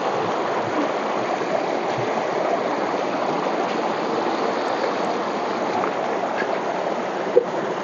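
Shallow mountain stream rushing steadily over rocks, close by. A single short knock near the end.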